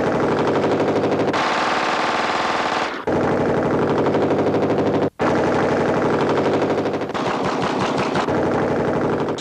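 Rapid automatic gunfire in long continuous bursts, briefly breaking off about three seconds in and again about five seconds in.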